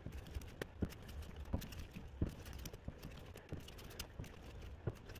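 Faint, irregular clicks and knocks from a 2009 Subaru Outback's steering being turned by hand with the engine off, wheels in the air. This back-and-forth turning works air out of the freshly replaced power steering rack and refilled system.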